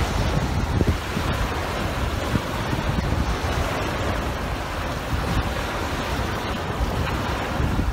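Strong wind buffeting the microphone over the steady wash of small waves breaking on the shore.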